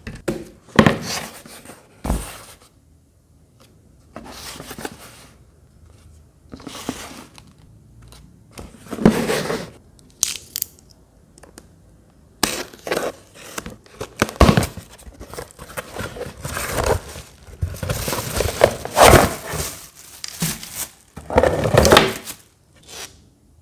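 A cardboard shipping box being opened by hand: a utility knife slitting the packing tape, then the flaps pulled apart and the contents tipped out. The sound comes in irregular bursts of scraping, tearing and rustling, with short pauses between them.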